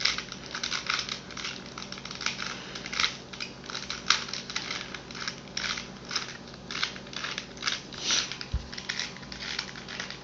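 Rubik's Cube being turned quickly by hand: rapid, irregular plastic clicking and clacking of the layers rotating, several turns a second, during the last stage of the solve.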